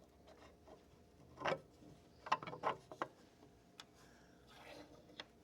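Faint, scattered clicks and knocks of carriage bolts and hardware being handled and fitted into the pre-drilled holes of the press's wooden leg braces.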